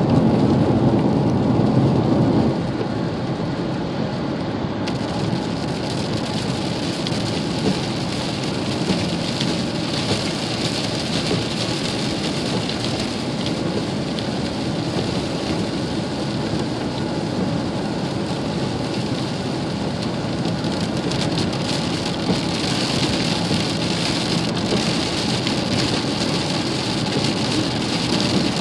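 Heavy rain pounding on a pickup truck's roof and windshield, heard from inside the cab, with tyres hissing on the flooded highway. A deeper rumble fills the first two seconds or so and then falls away.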